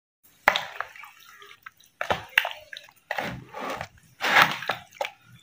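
Metal spoon stirring chicken pieces through a wet yogurt-and-spice marinade in a plastic bowl: irregular wet squelches and scrapes, with a few sharp knocks of the spoon against the bowl.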